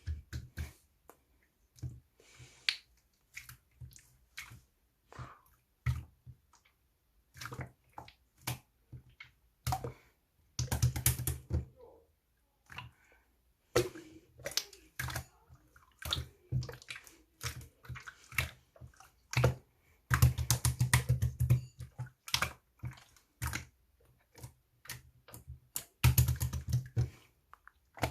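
Slime being squeezed and pressed by hand, making irregular sharp clicks and pops, with three runs of rapid popping about 11, 21 and 26 seconds in.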